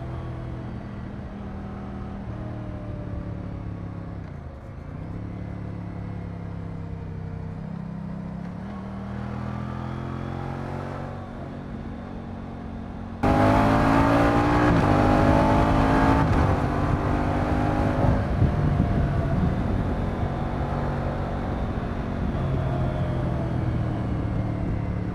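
Moto Guzzi V100 Mandello's transverse V-twin engine running on the road, its pitch falling and then rising with the throttle. About halfway in it suddenly gets much louder, with the revs climbing in several steps as it shifts up through the gears, then settling to a steady cruise.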